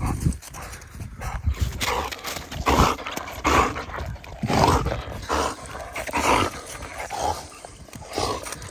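German shepherd panting hard after a fetch run, close to the microphone: a string of short rough breaths, roughly three every two seconds.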